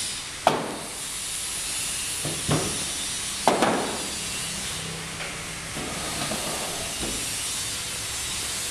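Bamboo furniture panel being handled and set down on a tile floor: a few sharp knocks, the loudest about half a second in and around three and a half seconds in, over a steady hiss.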